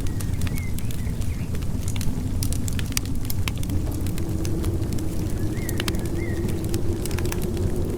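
Wood fire crackling, with frequent sharp pops and snaps over a steady low rumble of wind. A few faint, short high squeaks come through near the start and about six seconds in.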